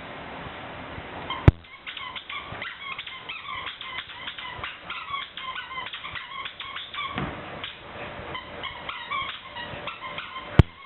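Dogs playing: a rapid run of short, high-pitched yips and whimpers. A sharp knock sounds about one and a half seconds in, and another near the end.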